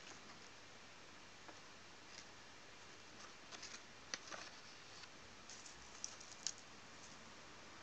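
Faint crinkles and ticks of a large sheet of paper being handled and peeled back off a drawing board, over a steady low hiss. The crinkles cluster in the middle and a couple of sharper ticks come near the end.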